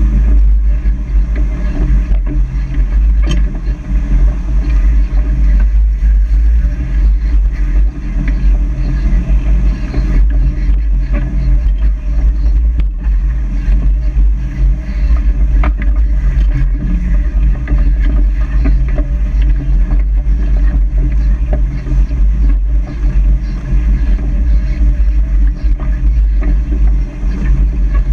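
Four-wheel-drive off-road vehicle driving slowly over a rocky dirt trail: its engine runs steadily under a heavy low rumble, with a few sharp knocks from the rough ground.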